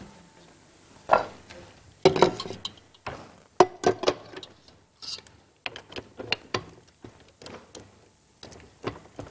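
Irregular metallic clinks, clicks and knocks from a stand mixer's stainless-steel bowl and whisk attachment being handled and fitted; the mixer is not running.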